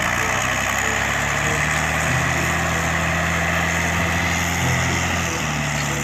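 Diesel engine of a Randon RK 430B off-road dump truck running steadily at a low hum while its bed tips up to dump a load of soil.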